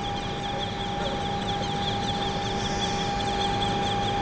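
Main spindle headstock of a Tornos Swiss GT 13 Swiss-type lathe being jogged: a high servo whine made of rapid flickering chirps, over a steady hum of shop machinery.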